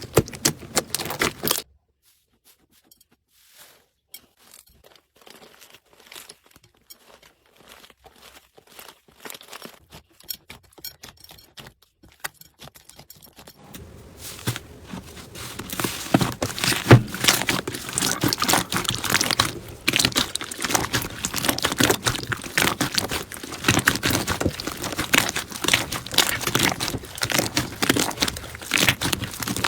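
Slime being pressed and squeezed by hand, giving dense crackling and popping clicks. Brief at the start, then faint and sparse for a long stretch, then loud and continuous from about halfway.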